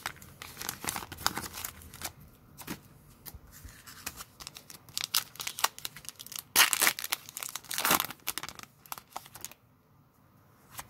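A Pokémon Darkness Ablaze booster pack's foil wrapper being torn open and crinkled by hand, an irregular crackling that is loudest a little past halfway and stops about a second before the end.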